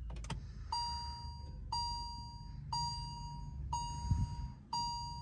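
Hyundai Verna's dashboard warning chime sounding as the ignition is switched on: a click, then an electronic ding repeating about once a second, six times.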